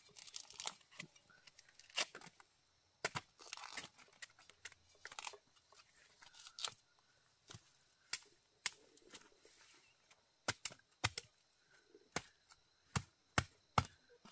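Vegetable stems and leaves being snapped and torn by hand: irregular sharp snaps with short bursts of rustling and tearing, the snaps coming quicker near the end.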